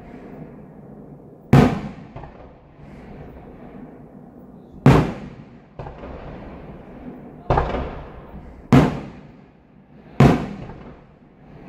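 Aerial fireworks shells bursting overhead: five loud booms one to three seconds apart, with a fainter bang between the second and third. Each boom is followed by a fading rumble.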